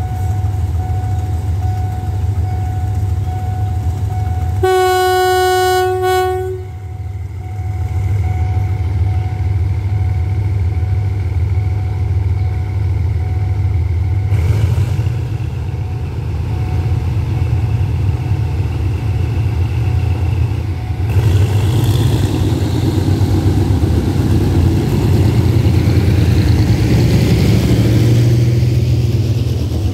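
GE diesel-electric locomotive running past at low speed with a steady engine drone. Its air horn sounds once, for about two seconds, about five seconds in. From about twenty seconds in, the rolling noise of the passenger coaches passing grows louder.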